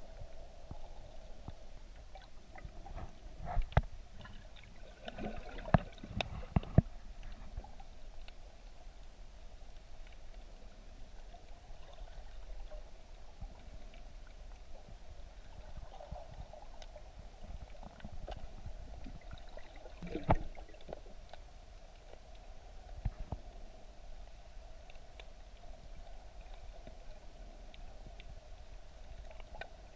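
Muffled underwater sound picked up by a camera held below the surface: a steady low wash of water with sharp knocks and clicks. The knocks come as a cluster a few seconds in and twice more about two-thirds of the way through.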